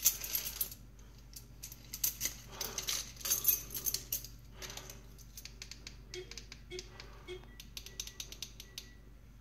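Close handling noise: clusters of sharp clicks and light rattling, loudest over the first four seconds, then a quicker run of lighter ticks. This is the hand-held camera being shifted against the window frame.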